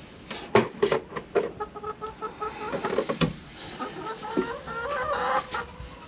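Chickens clucking in a run of short, quick notes, over scattered rustling and knocks.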